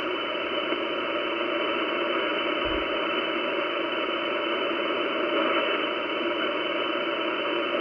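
Steady hiss of band noise from an Icom IC-756PRO transceiver's speaker in upper-sideband mode as the dial is tuned down the 10-meter band between stations. A brief low thump comes about a third of the way in.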